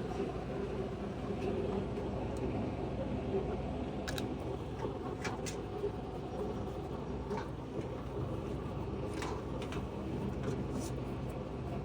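A steady low mechanical hum, with a few short, faint clicks in the middle and near the end.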